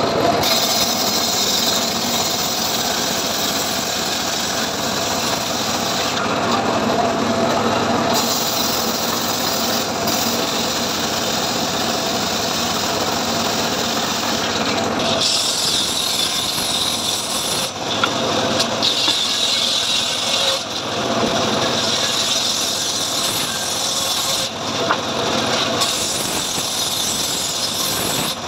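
A homemade circular saw bench ripping a log lengthwise, the big blade cutting steadily through the wood, with brief lulls in the cutting noise every few seconds as the log is pushed through and repositioned.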